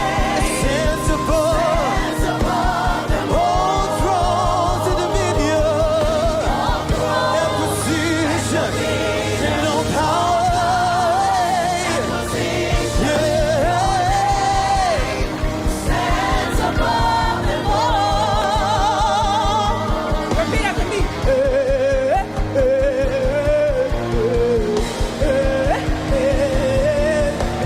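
Live gospel worship music: a singer holding wavering, melismatic lines over a full band with steady low bass and a fast pulse, with a choir singing along.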